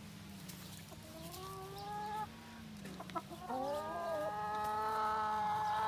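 Hens calling: two long, drawn-out calls, the first about a second long, the second about two and a half seconds, each rising slightly and then held steady.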